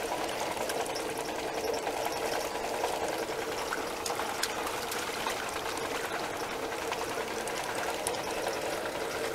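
Water pump draining the pond, running with a steady, unchanging hum over the wash of moving water.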